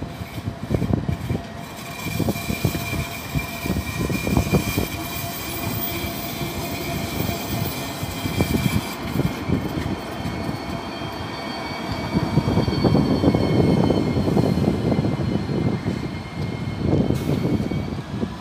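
Alstom Citadis tram passing close by on curved track, with a steady high-pitched whine from its wheels and running gear. Gusty wind buffets the microphone throughout.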